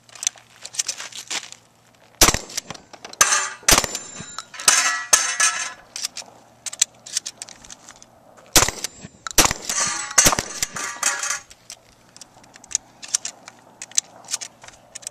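Pump-action shotgun firing a few shots at steel targets, each followed by the steel plates clanging and ringing, with small clicks of shells being loaded into the magazine tube between strings.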